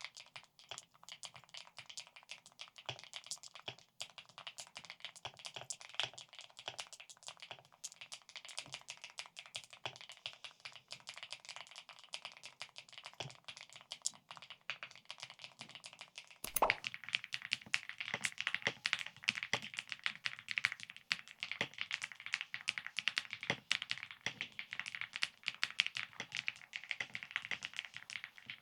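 Typing sound test on a KiiBoom MoonShadow V2 mechanical keyboard fitted with a polycarbonate (PC) plate: a fast, continuous run of key clacks. It gets louder and busier a little over halfway through.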